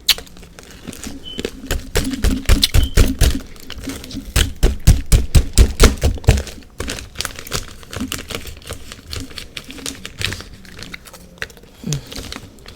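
Hard, refrozen humidifier freezer frost cracking and crunching: a rapid run of sharp crackles and clicks, densest from about two to seven seconds in, then sparser.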